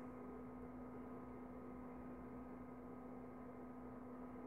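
Quiet room tone with a low, steady electrical hum and no distinct handling sounds.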